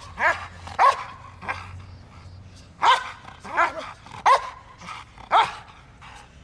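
A Belgian Malinois barking in sharp, repeated barks, about seven at uneven intervals: threat barking at a man in a bite suit during protection training.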